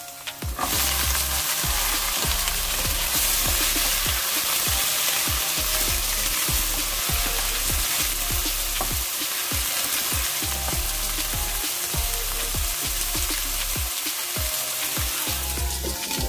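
Fresh long beans hitting hot oil in a wok with sautéed onion and garlic: loud sizzling that starts about half a second in, stirred with a wooden spatula. The sizzle falls away near the end as a metal lid goes on the pan.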